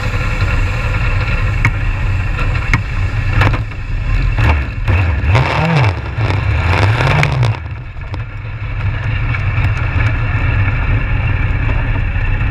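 Legends race car's Yamaha inline-four motorcycle engine idling. About halfway through it is blipped twice, the pitch rising and falling each time, before it drops back to a steady idle.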